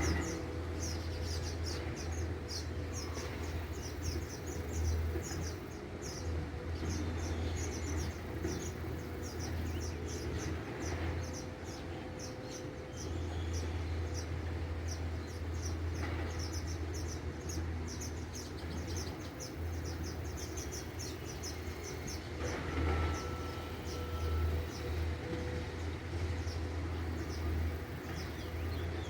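Many small birds chirping together in rapid, repeated high-pitched notes, over a steady low rumble.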